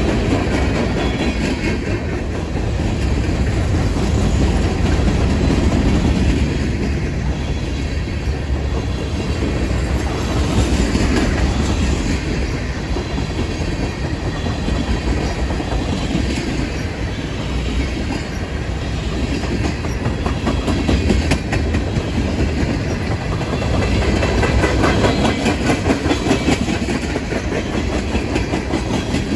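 Train cars rolling past, their wheels clicking steadily over the rail joints, the rumble swelling and easing as the cars go by.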